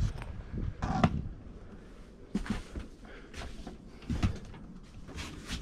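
A handful of light knocks and rustles, the loudest about a second in, from someone moving around and handling the pop-top camper's canvas and fittings.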